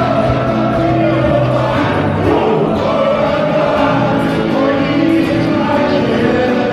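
Many men singing a worship song together, with sustained sung notes held over music.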